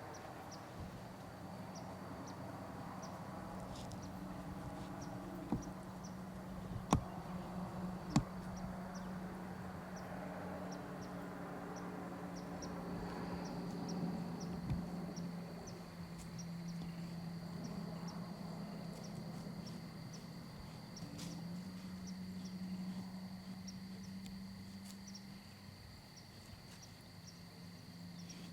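Woodland ambience: insects chirping in a regular rhythm of about two chirps a second, joined by a steady high insect trill from about halfway, over a steady low drone. Two sharp clicks about seven and eight seconds in.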